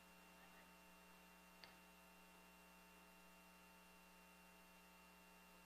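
Near silence: a faint steady electrical hum, with one tiny click about a second and a half in.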